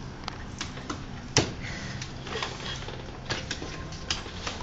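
Scattered sharp clicks and taps over a low steady background, the loudest about a second and a half in and a few more close together near the end.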